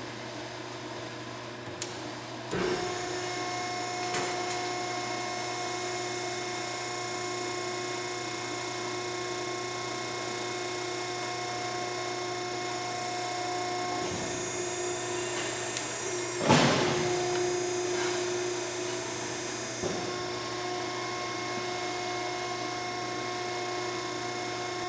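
Hydraulic ironworker's motor and pump starting about two and a half seconds in and then running with a steady hum. A little past the middle comes one sharp, loud shear stroke cutting thin sheet steel, the loudest moment.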